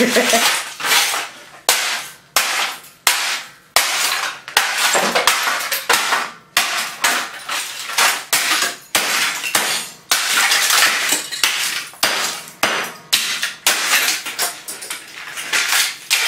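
Hammer blows smashing the broken plastic housing and circuit boards of a small CRT television clock radio, about one to two sharp strikes a second, each followed by the clatter of plastic and metal fragments.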